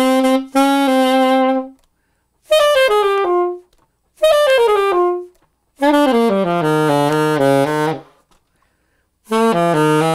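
Alto saxophone played unmuted, without a practice mute, in five short phrases separated by brief pauses. Several phrases run down the scale to a held low note. It is loud enough to read about 85 dB on a phone sound-level meter.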